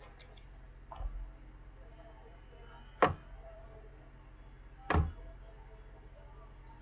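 A soft knock about a second in, then two sharp taps about two seconds apart: cards or packs being handled and set down on a table.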